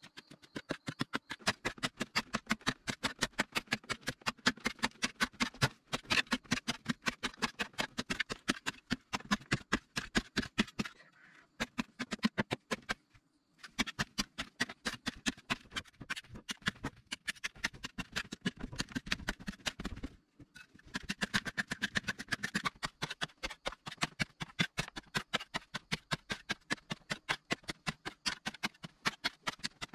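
Hand digging tool striking and scraping into packed clay soil in a rapid, even run of strikes, several a second, broken off twice for a moment.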